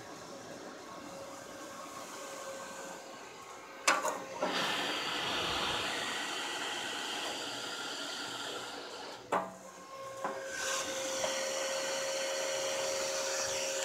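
Delta AUB0812HH 80 mm DC brushless computer fan, powered straight from a molex connector, running as a steady rush of air like a vacuum cleaner. A sharp click comes about four seconds in, and the rush grows louder after it. Another click and a short dip follow about nine seconds in, then the rush returns with a steady whine.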